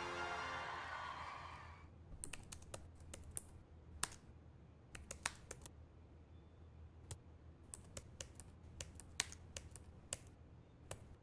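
Typing on a computer keyboard: irregular keystrokes in small runs with pauses between them. It follows the tail of orchestral music fading out over the first two seconds.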